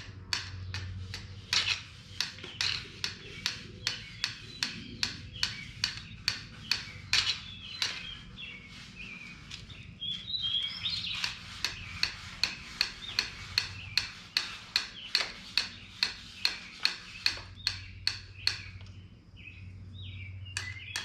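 Emery cloth rubbed by hand in quick, even strokes, about two to three a second, over the oil pan gasket surface of a Chevy 350 engine block, sanding off old gasket material. A bird chirps about halfway through.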